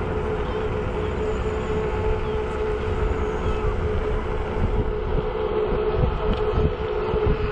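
Navee N65 500 W electric scooter riding at a steady speed: a steady motor whine over the rumble of the tyres on the road and wind on the microphone, with more bumps from the road surface in the second half.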